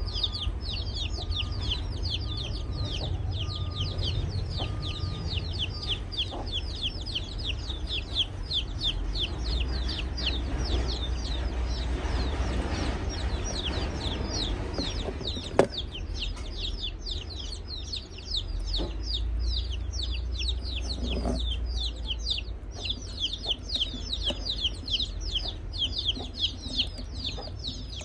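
Birds cheeping without a break, a rapid string of short, high chirps, several a second, each falling in pitch, over a low rumble. A single sharp knock comes about halfway through.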